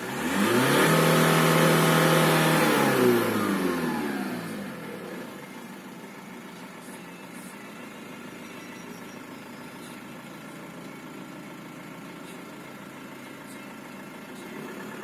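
Volkswagen Passat B5's 1.8-litre turbocharged four-cylinder (AVB) engine, with its Garrett turbo, revved once, held high for about three seconds, then dropping back to a steady idle. A whistle from the turbo rises with the revs, the sign of a piece broken off the turbo wheel.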